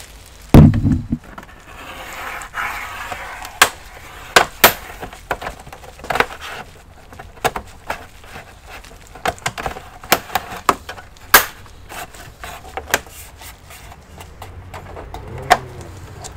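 Plastic casing of an all-in-one PC being worked open by hand and tool: a heavy thump about half a second in, some scraping, then scattered sharp clicks and snaps of plastic.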